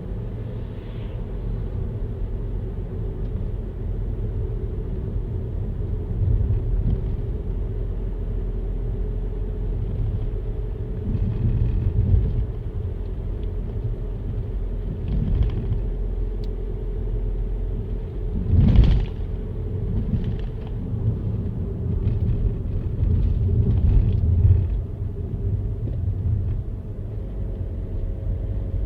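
A car driving, giving a steady low road and engine rumble with a constant hum. The rumble swells briefly now and then, and one short, louder thump comes about two-thirds of the way through.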